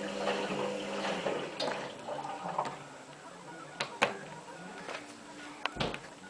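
Washing machine sounds: a steady hum stops about a second in, followed by a faint wash of water sound and several sharp clicks.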